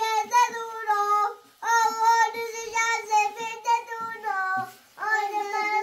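A child singing a melody in a high voice, in held, wavering sung phrases with short breaks about a second and a half in and again near five seconds.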